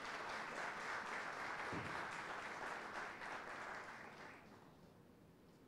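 Audience applause, a dense patter of many hands clapping that dies away about four seconds in.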